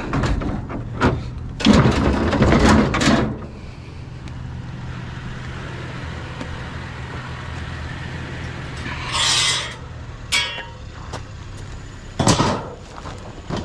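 Metal wire shelving being handled and loaded, clattering and scraping in several bursts, the longest about two seconds in and a short bright rattle with a ringing scrape about nine seconds in. A steady low hum runs underneath.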